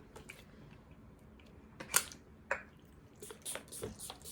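Quiet handling of a perfume bottle: a few short, sharp clicks and taps, the loudest about two seconds in and a cluster of fainter ones near the end.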